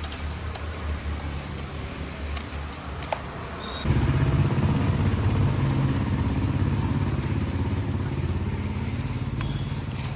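A motor or engine running steadily, with a low hum that suddenly grows louder about four seconds in and stays loud.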